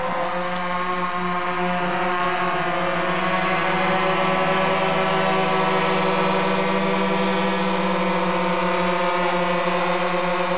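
Quadcopter drone's propellers and motors running in flight, a steady buzzing whine of several pitches held level throughout.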